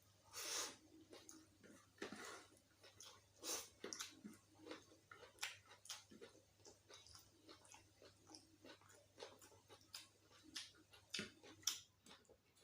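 A person chewing food close to the microphone: soft, irregular wet mouth clicks and smacks, several a second, with a few louder bites.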